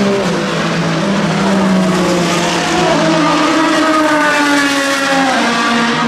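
Vanwall Vandervell 680 hypercar's naturally aspirated Gibson 4.5-litre V8 at racing speed, accelerating through a corner and passing by. The engine note climbs steadily, then drops about five seconds in.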